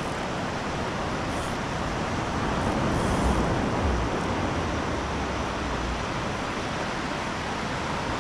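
Steady rush of surf washing up the beach, with wind rumbling on the microphone from about three seconds in.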